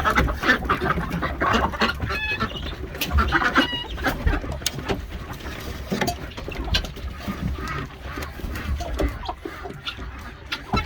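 Chickens clucking and calling as they come out of their pen, with many short knocks and scuffs.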